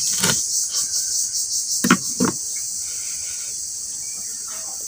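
Steady high-pitched chirring of crickets, with two sharp knocks about two seconds in from a knife on a plastic cutting board as a crisp fried fritter is cut.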